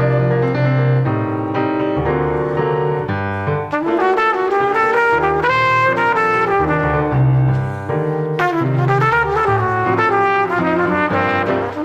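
Salsa music with a brass section: trumpets and trombones playing melodic lines over piano and a steady bass pattern.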